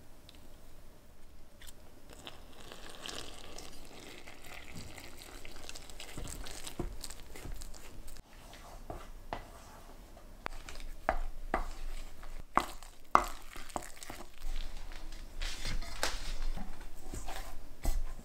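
Flour being stirred into dough with wooden chopsticks in a stainless steel mixing bowl: irregular soft scraping and crunching, with a run of sharp clicks in the second half. Near the end, hands knead the dough against the bowl.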